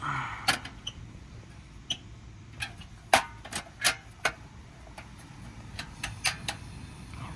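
Irregular clicks and knocks of a portable camp stove and cooking gear being unpacked and handled, about a dozen small hard taps spread over several seconds.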